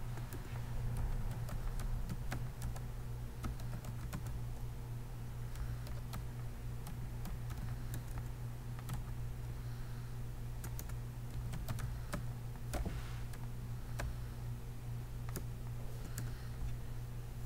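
Computer keyboard keys being typed and tapped in an uneven run of sharp clicks, as text is typed and backspaced away, over a steady low hum.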